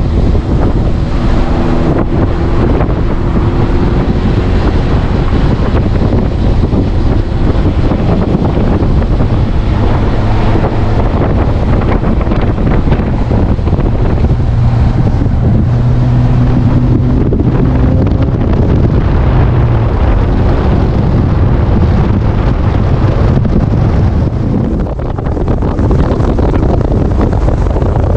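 Heavy, steady wind buffeting the microphone, loud throughout, with a faint low engine hum showing through at times.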